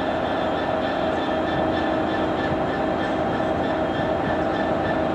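GB Railfreight Class 66 diesel locomotive running close by, its EMD two-stroke V12 engine giving a steady drone with several held tones over it.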